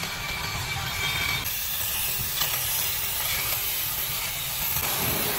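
Kutan cordless mini hedge trimmer running, its battery-driven reciprocating blades chattering as they cut through shrub leaves, over a steady hiss and low rumble. The sound changes character about one and a half seconds in.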